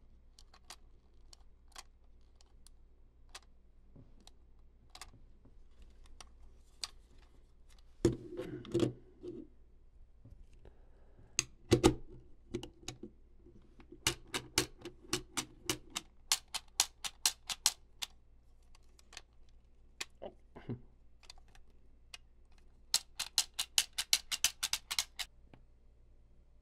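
Plastic toys and packaging being handled: scattered sharp clicks, two louder knocks about 8 and 12 seconds in, then quick runs of evenly spaced clicks, a faster run near the end.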